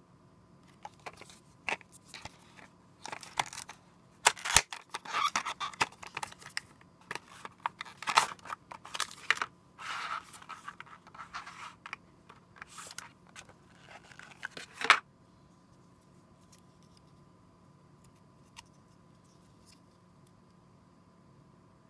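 Cardboard box and clear plastic blister tray of a phone ring holder being opened and handled: repeated bursts of rustling, crinkling and scraping with a few sharp clicks. It stops abruptly about fifteen seconds in.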